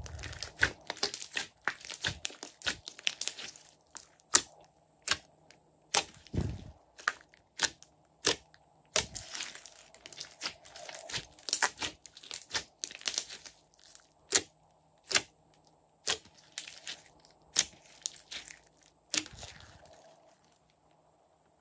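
Hands kneading, squeezing and stretching a large lump of soft slime, giving an irregular run of wet clicks and pops. It crackles densely at times and thins to single sharp pops in the later part.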